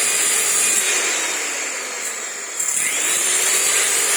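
Electric woodworking power tool running with a loud, steady motor whine. The pitch sags as it is loaded, then picks up again about two and a half seconds in.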